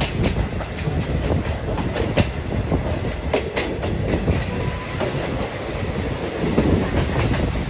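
Passenger train carriage running along the track, heard at its open window: a steady rumble of wheels on rail with irregular clicks and clacks as the wheels pass over rail joints.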